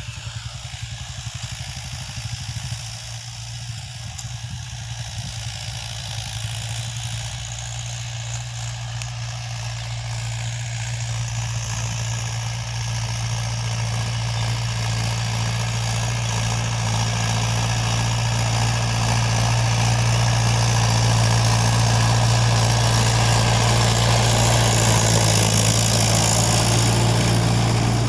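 Mahindra 575 DI tractor's four-cylinder diesel engine running steadily while pulling a disc harrow through tilled soil, growing louder as it draws near.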